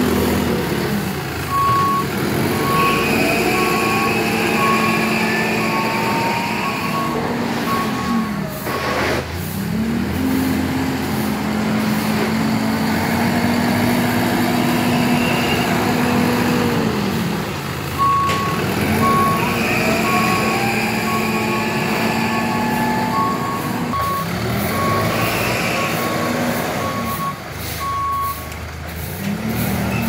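Tata Hitachi Shinrai Prime backhoe loader's diesel engine running and revving as it works the loader bucket, its pitch dropping and climbing with each change of direction. Its reversing alarm beeps steadily in two runs while it backs up, about seven seconds from shortly after the start and about ten seconds from past the middle, each with a rising whine as it gathers speed.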